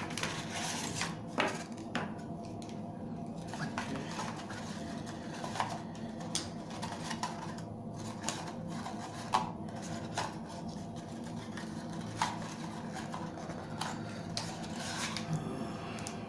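Hands handling a phone's packaging and accessories: scattered light taps, clicks and rubbing of plastic and cardboard over a steady background hum.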